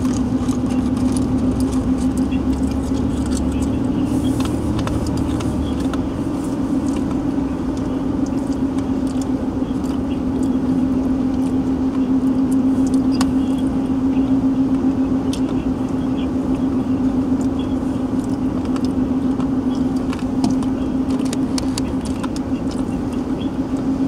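Steady road drone inside a moving car's cabin, engine and tyre noise on a wet road, with a few faint ticks and rattles scattered through it.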